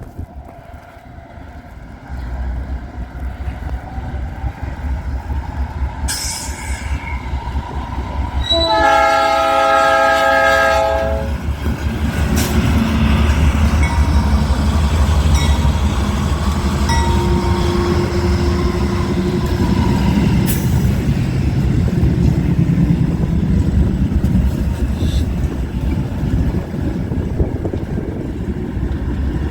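A diesel freight locomotive's Nathan Airchime New Cast P3 horn sounds one chord blast of about two and a half seconds, about nine seconds in. The approaching train's rumble builds before it, and afterwards the train rolls past with a steady loud rumble and wheel clatter.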